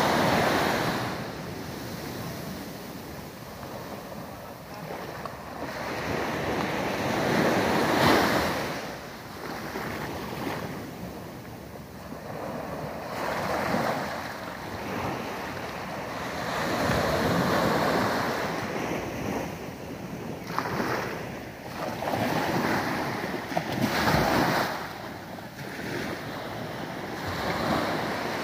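Small waves breaking and washing up a sandy beach, the rush of surf swelling and falling away every few seconds.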